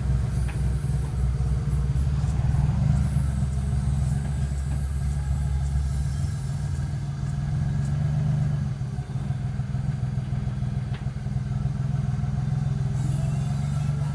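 Daihatsu Hijet 1000 engine running steadily after two months unused; its deepest rumble drops away about six seconds in.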